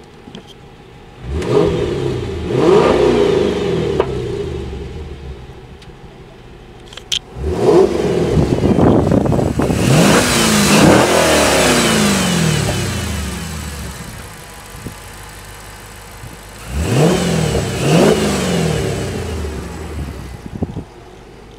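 Dodge Challenger SRT8's 6.1-litre Hemi V8 idling and being revved in three bursts, each rising and falling back to idle; the middle burst is longest, with several quick blips of the throttle.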